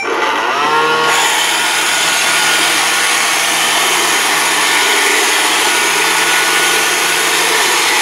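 An iRobot Roomba 400 Discovery robot vacuum starting a cleaning run: its brush and vacuum motors spin up with a rising whine in the first second, then run steadily as it drives across the floor.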